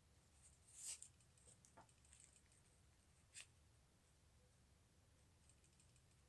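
Near silence with faint clicks and light rustles of glass-bead leaves and thin wire being twisted together by hand. Two slightly sharper ticks stand out, about a second in and again halfway through.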